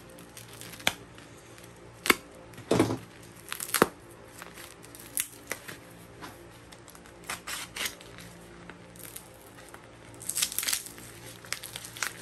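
Plastic packaging wrap crinkling and tearing as a taped package is handled and opened, in irregular crackles and clicks with a denser burst of tearing about ten seconds in.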